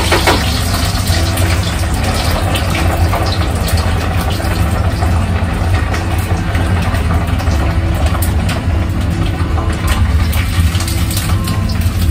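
A wooden spoon stirring and scraping fried aubergine and paneer in a frying pan, heard as short scattered scrapes, over a loud, steady low mechanical hum.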